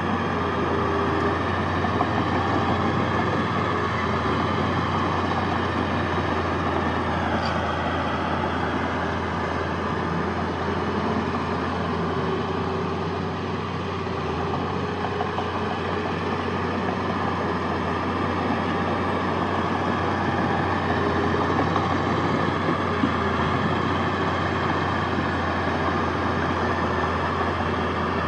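Heavy diesel earthmoving machinery running steadily: a constant low engine drone under dense mechanical noise, with no sharp impacts.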